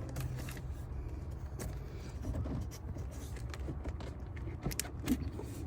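Scattered light clicks and taps of hands working at the plastic electrical connector of a truck's mass airflow sensor, with one sharper click about five seconds in, over a steady low background rumble.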